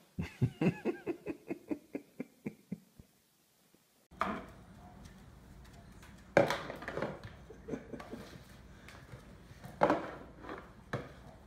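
A bulldog's head stuck in a plastic pumpkin bucket knocking against a wooden cabinet and tile floor: a few sharp hollow knocks, the loudest about six and ten seconds in. Before that, in the first three seconds, a quick run of short pitched sounds fades out, followed by a short near-silence.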